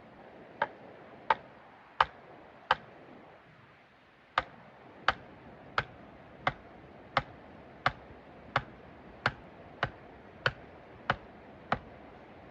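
A tool striking wood in an even rhythm, about sixteen sharp blows at roughly one and a half a second, with a short break about three seconds in.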